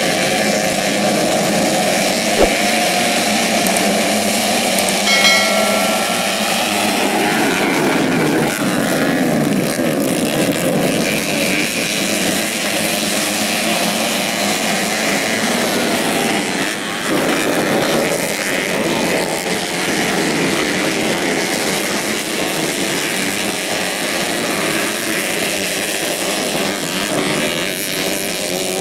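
A pack of modified four-stroke 125cc underbone motorcycles racing off the start and around a dirt track, many engines revving hard together in a continuous, shifting drone. A single sharp knock comes about two and a half seconds in, and a brief high-pitched tone a little after five seconds.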